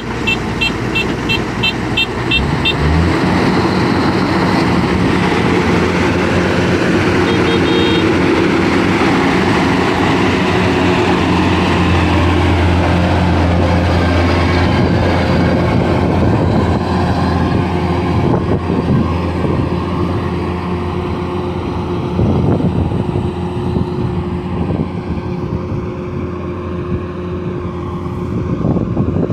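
Combine harvester's engine running steadily while harvesting rice, rising in pitch about two seconds in. A quick string of short high beeps sounds at the start and again briefly around eight seconds.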